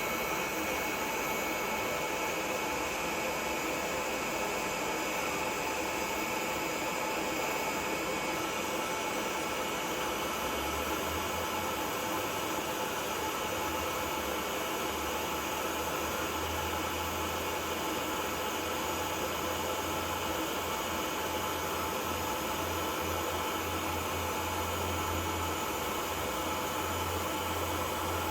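TIG welding arc on titanium exhaust tubing, a steady hiss with faint steady tones through it; a low hum joins about eleven seconds in.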